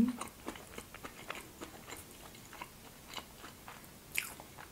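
Close-up chewing of a homemade waffle: soft crunching and small wet mouth clicks, with a brief louder noise about four seconds in.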